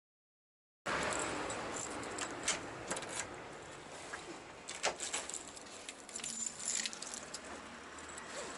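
Rustling handling noise with scattered sharp clicks and light metallic jingling, starting suddenly about a second in.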